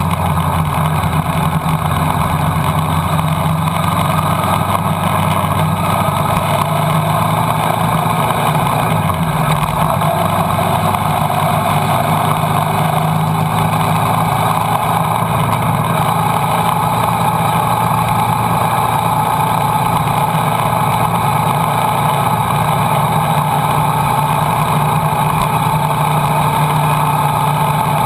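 Motorcycle engine running steadily at cruising speed, heard from a camera mounted on the bike, over a steady rush of wind noise; the engine's pitch climbs slowly through the second half.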